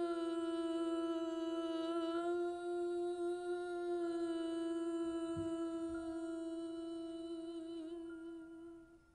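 A man's voice holding one long sung note at a steady pitch, with nothing else playing, fading away near the end.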